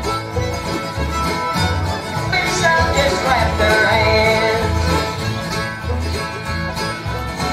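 Bluegrass-style string band music playing, with a steady, even bass beat and a sliding melody line that comes forward in the middle.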